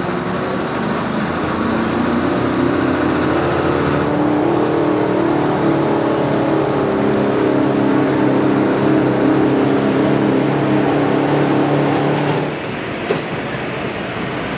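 A 4WD pulling truck's engine running hard under load down the pulling track, a loud steady engine note whose character shifts about four seconds in, then drops away sharply about twelve and a half seconds in as the driver lets off.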